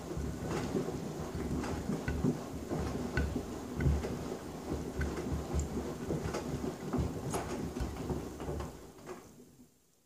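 Front-loading washing machine drum turning a load of Birkenstock sandals in soapy water: a motor hum and sloshing water, with repeated knocks as the sandals drop against the drum. The drum winds down and stops near the end.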